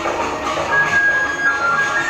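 Music playing, its melody moving in long held high notes over a full accompaniment.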